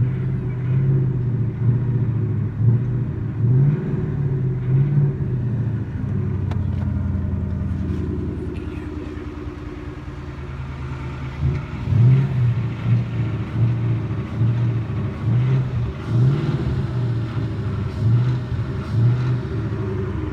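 2018 Ford Mustang engine blipped repeatedly from idle into the 2,000–3,000 RPM range, settling to a steady idle for a few seconds midway. The revs carry a rattle that the owner takes for piston slap or rod knock, though the Ford dealer called it normal.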